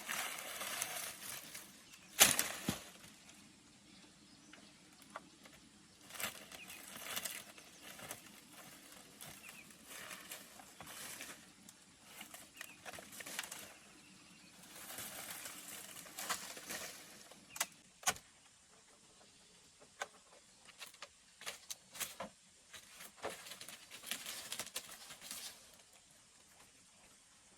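Dry palm leaves rustling and swishing as they are handled, in irregular bursts, with one sharp crack about two seconds in and a click later on.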